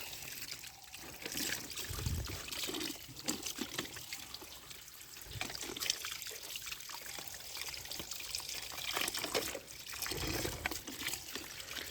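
Water trickling and splashing over plastic toy vehicles as they are rinsed of mud, with scattered light clicks and knocks.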